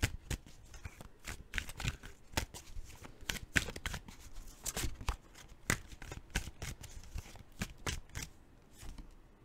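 A deck of tarot cards being shuffled overhand by hand: a quick, irregular run of card slaps and rustles, thinning out near the end.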